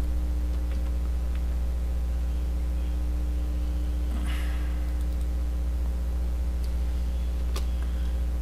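Steady low electrical hum from the recording setup, with a short breath about four seconds in and a few faint clicks.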